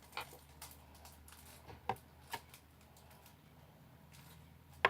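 A few light, scattered clicks and taps of small objects being handled on a table, over a faint steady hum.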